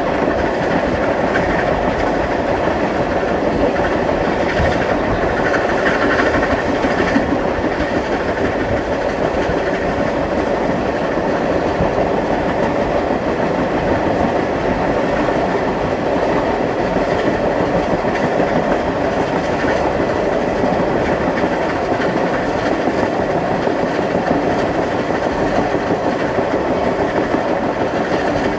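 Steam-hauled excursion train of Canadian Pacific 4-6-2 No. 1201 running steadily, its wheels clattering over the rails in a continuous rumble, with a brief burst of hiss about six seconds in.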